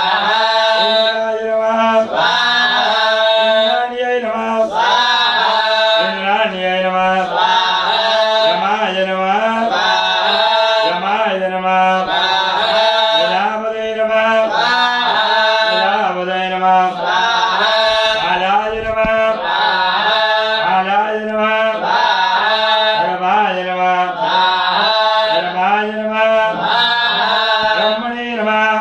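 Male voices chanting Hindu mantras for a havan fire ritual, in a steady, even cadence with phrases repeating about every two seconds.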